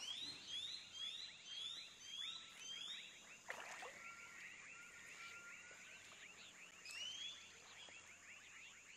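Tropical animal chorus: a dense, steady chatter of short chirps, with a louder call rising in pitch repeated about twice a second for the first three seconds and once more about seven seconds in. A single sharp knock about three and a half seconds in.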